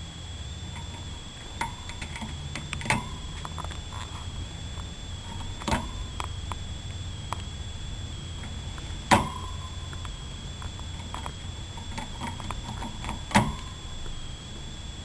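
Hamster gnawing on a seed-stick treat: scattered small crunching clicks, with four louder sharp cracks a few seconds apart as bits of seed break off. A steady faint high whine runs underneath.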